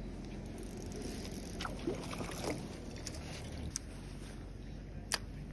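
Steady low wind rumble on the microphone, with a few sharp clicks and handling knocks from the spinning rod and reel as it is worked.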